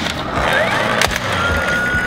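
Plastic toy fire truck released from its locked, pushed-down position, its wheels rolling and rattling across a tabletop, with a sharp click about a second in as the spring-loaded ladder pops up, over background music.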